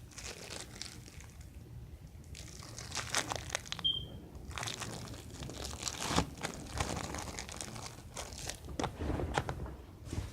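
Packaging being crinkled and crumpled by hand in irregular rustling bursts, with a short high beep about four seconds in.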